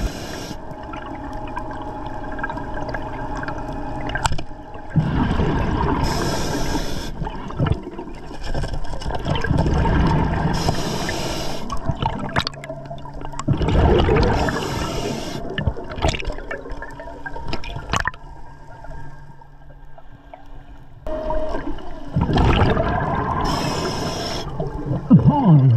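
Scuba diver breathing underwater through an Atomic regulator: several hissing bursts of exhaled bubbles a few seconds apart, over a low underwater rumble.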